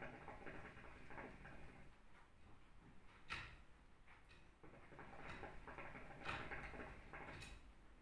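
Faint bubbling of hookah water as smoke is drawn through the bowl's water, in two draws: one lasting about two seconds at the start, the other from about four and a half to seven and a half seconds.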